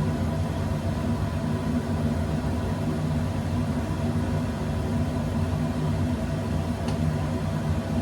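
Steady droning hum of a kitchen appliance motor, with low tones that hold constant throughout.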